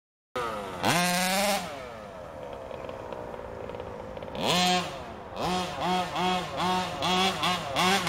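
HPI Baja 5T RC truck's two-stroke petrol engine, cutting in suddenly and revving up hard once, dropping back to a lower running speed, then revving again. From about five seconds in, the throttle is blipped on and off in short bursts, about two to three a second.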